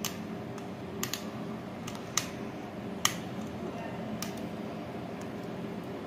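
A handful of sharp, small clicks at irregular intervals of about a second, over a steady low hum: hands working the plastic wire connector block of a ceiling fan as a wire is undone from it.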